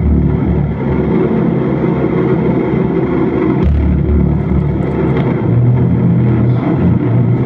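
Loud electronic noise drone from a chain of effects pedals and a mixer played through amplifiers: a dense, continuous wall of sound over steady low tones, with deep bass swells that come in at the start, again about three and a half seconds in, and once more near the end.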